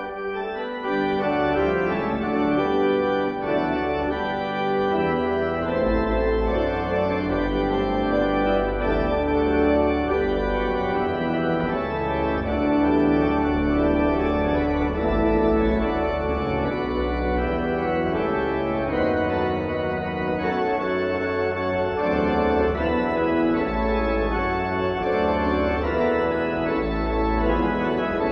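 Organ playing sustained chords that change every second or so, with deep bass notes entering and dropping out from about six seconds in.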